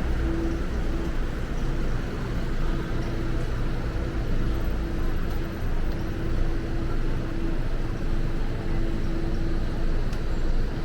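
Strong wind buffeting the microphone as a continuous low, rumbling roar, over city street traffic noise, with a steady hum that fades in and out.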